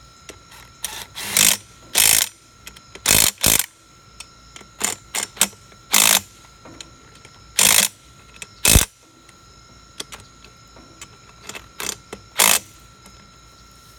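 DeWalt impact wrench hammering in a series of short bursts at uneven gaps, working loose a stubborn fastener.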